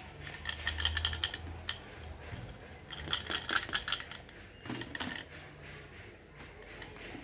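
Plastic pop tube being stretched and squeezed, its ribbed segments snapping in runs of rapid, crunchy clicking: two dense runs about two seconds apart and a shorter one near five seconds in.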